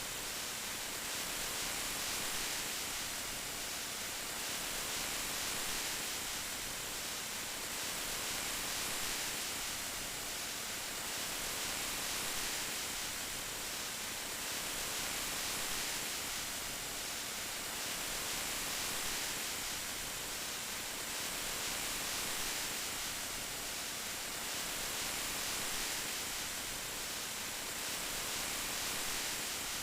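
Steady rain hiss, an even wash of noise that swells gently about every three seconds.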